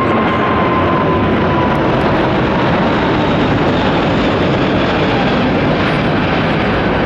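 Emirates Airbus A380-861's four Engine Alliance GP7270 turbofans at takeoff thrust during the initial climb: a loud, steady rush of jet noise. A high whine over it slides slightly down and fades about a second in.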